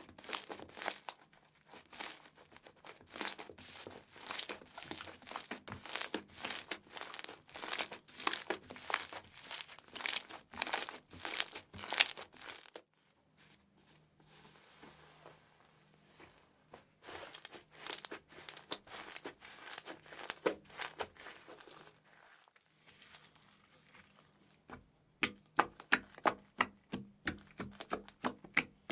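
Slime being squeezed and worked by hand, giving many short crackles and pops. There is a softer lull about halfway through, and a quicker, more even run of clicks near the end.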